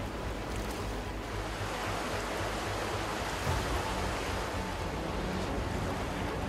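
Fast-flowing muddy floodwater rushing past, a steady noise of churning water.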